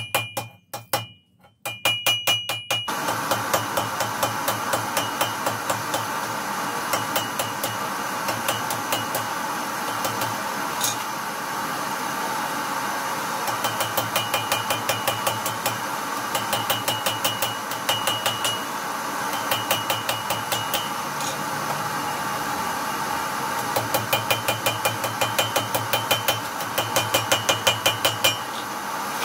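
Hand hammer striking hot wrought iron held in tongs on an anvil, in quick runs of about four blows a second with a ringing clink, stopping and starting several times. From about three seconds in, a steady rushing noise runs beneath the strikes.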